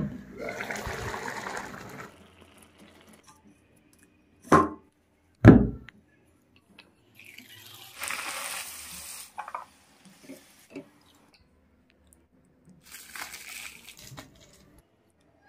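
Kitchen sounds in separate bursts: a short hiss at the start, two sharp knocks about four and a half and five and a half seconds in, then a bhatura sizzling as it deep-fries in hot oil for about a second and a half around eight seconds in, and a short rustle near the end.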